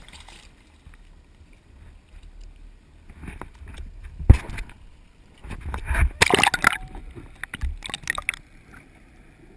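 Sea water splashing and rushing over an action camera as it is dipped under the surface, in irregular bursts through the second half. A sharp knock on the camera about four seconds in.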